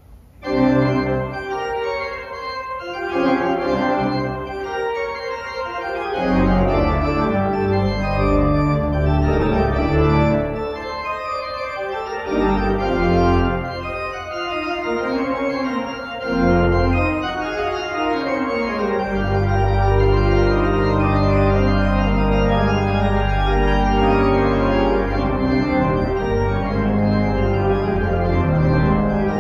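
Church organ playing a slow hymn prelude in sustained chords. Low pedal bass notes come in about six seconds in and hold steady under the chords from about nineteen seconds on.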